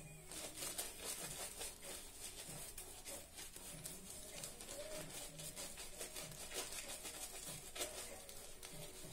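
Large synthetic-handled shaving brush being swirled and scrubbed through shaving-soap lather on a stubbled face: a faint wet, bristly scrubbing, a few strokes a second.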